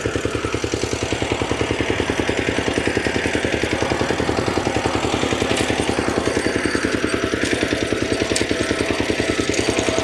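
Engine of a ploughing tractor running steadily under load, with an even, fast pulsing beat.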